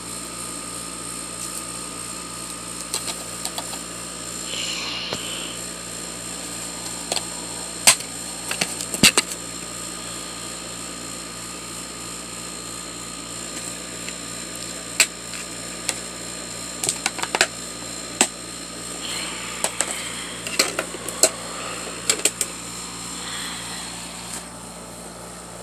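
A steady low mechanical hum with a fast regular pulse underneath. Scattered sharp clicks and knocks of handled plastic come twice in a cluster, about eight seconds in and again from about seventeen to twenty-three seconds.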